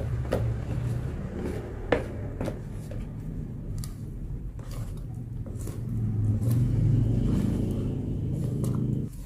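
Wooden spoon stirring thick flour-and-water martabak batter by hand in a plastic tub, as the batter is worked until smooth. It makes a low rumble that swells and fades, with a few sharp knocks of the spoon against the tub, the loudest about two seconds in.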